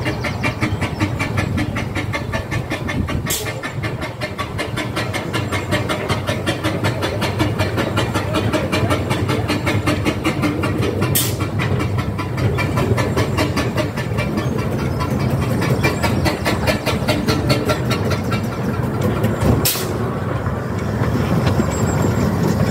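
Narrow-gauge steam locomotive drawing its coaches slowly into a station, with a fast, steady, rhythmic clatter and three sharp clicks about eight seconds apart. It grows slightly louder near the end as it comes alongside.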